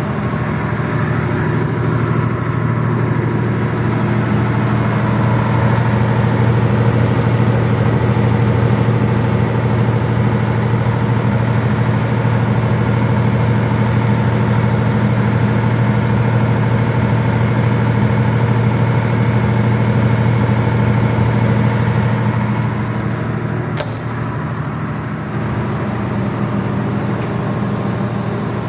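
Cummins-powered 200 kVA diesel generator set running at a steady speed: a loud, constant low drone that holds one pitch throughout, with a single short click near the end.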